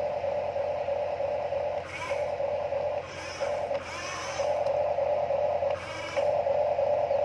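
Remote-control toy excavator's small electric gear motors whining as the boom and bucket move. The whine breaks off and changes pitch several times as one motion stops and another starts.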